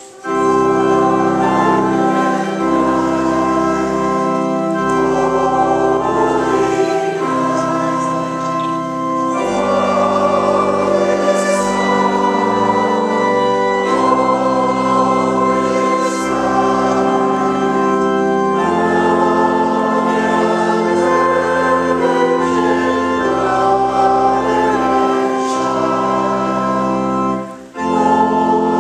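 Organ playing a Christmas carol with a group of voices singing along, held chords over a sustained bass line. The music stops briefly near the end, between verses, and starts again.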